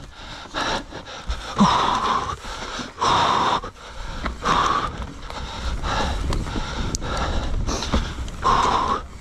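An enduro rider breathing hard from exertion, with heavy breaths coming every one to two seconds.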